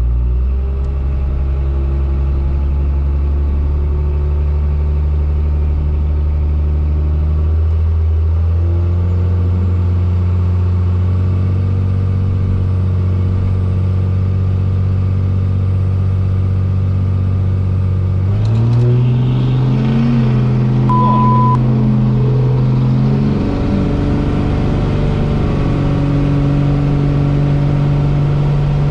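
Second-generation Dodge Ram's 12-valve Cummins diesel heard from inside the cab, running steadily at the start line, its pitch stepping up about eight seconds in and again about two-thirds through as the truck launches down the drag strip. A short beep sounds during the run.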